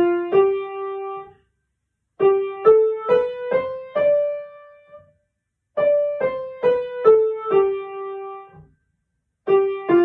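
Upright piano, right hand alone, playing single notes in five-note groups with short rests between: do-re-mi-fa-sol ending on a held sol, then sol-la-si-do-re rising and held, then re-do-si-la-sol falling and held. Near the end, sol-fa-mi-re-do begins coming down. It is a beginner's five-finger position melody, with the thumb moving from do to sol.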